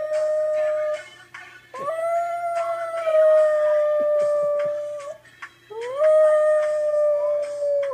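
A dog howling along to music: long held howls that glide up at the start and then hold steady. One ends about a second in, another runs from about two to five seconds, and a third starts near six seconds, with the song playing underneath.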